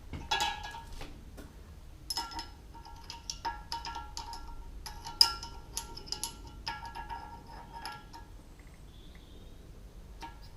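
Steel valve-train parts of a cylinder head clinking and ringing as new valves and springs are fitted, a string of separate metal strikes that each ring on briefly, the sharpest about halfway through.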